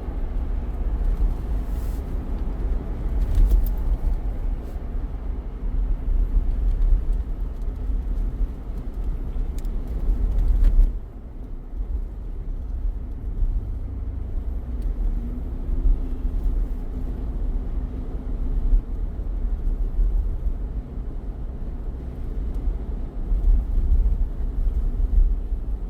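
Car road noise while driving: a steady low rumble of engine and tyres with a faint hum, dropping suddenly about eleven seconds in and then running on more quietly.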